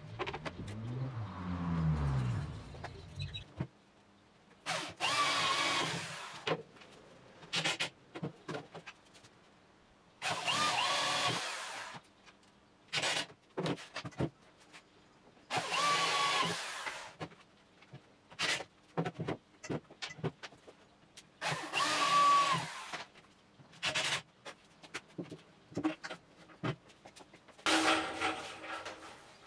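Electric drill running in four bursts of about a second and a half each, several seconds apart, with short knocks and clatter of handling between them. A low scrape comes in the first few seconds.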